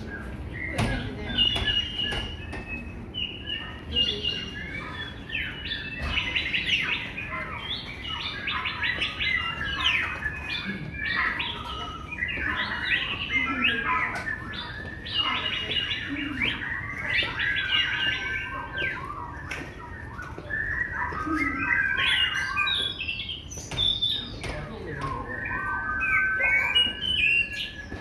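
Many birds chirping and calling at once, a dense chorus of quick chirps and short whistles; near the end one steady whistled note is held.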